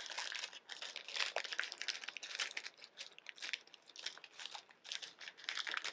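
Plastic snack bag of Japanese-style peanuts crinkling and crackling as it is opened and handled, a dense run of irregular crackles.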